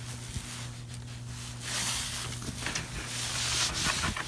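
Crunching and scraping of ice and frost, with scattered light crackles and a denser hissing scrape lasting about two seconds in the middle.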